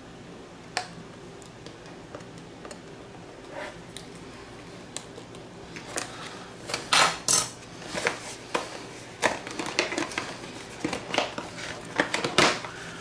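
Cardboard box being slit open with a folding pocket knife and handled on a stone countertop: irregular scrapes, taps and clicks, sparse at first and busier in the second half.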